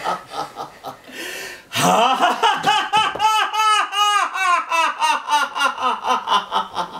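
A long, rhythmic villain's laugh, "ha-ha-ha" at about four or five beats a second, from the robed demon figure. A short breathy hiss comes before it, and the laugh starts about two seconds in.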